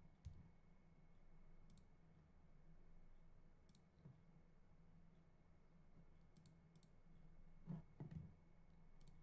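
Near silence: quiet room tone with a few faint, sharp clicks, some in quick pairs, and two soft low thumps near the end.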